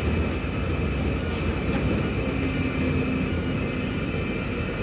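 MAZ-216 city bus heard from inside the passenger cabin while driving: a steady engine and road rumble with a thin high whine held throughout.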